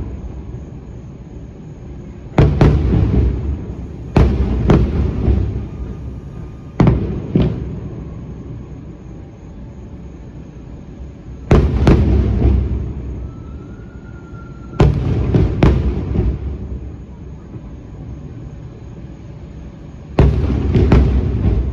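Aerial fireworks shells bursting, about ten booms in clusters every few seconds. Each boom is loud and sudden, followed by a long low rumble and echo.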